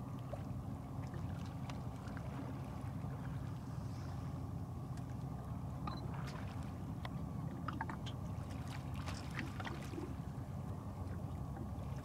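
Engine of the motor vessel MV Inside Passage running steadily underway, a low even drone with a faint hiss of water and wind over it.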